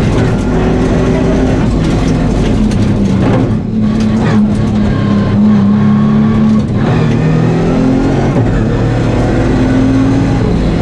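Nissan 350Z rally car's 3.5-litre V6 running hard, heard from inside the cabin. Its pitch climbs and falls as the driver works through the gears, with two short dips in loudness for gear changes about three and a half and six and a half seconds in.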